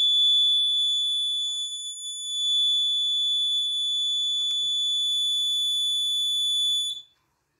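Piezo buzzer alarm sounding one continuous high-pitched tone, which cuts off suddenly about seven seconds in. It is the alarm for an unauthorized (wrong) QR-code card having been scanned.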